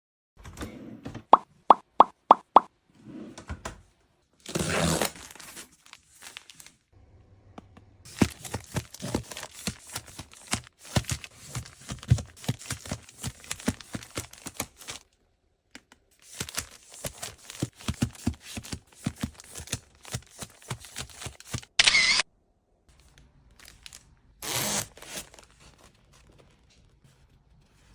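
Close-up handling of small items being unpacked and arranged: a quick run of about five hollow plops near the start, then brief rustling or tearing bursts and many light clicks and taps.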